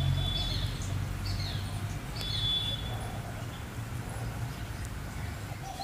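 A small bird chirping: short, falling calls repeated about once a second during the first half, over a low steady rumble.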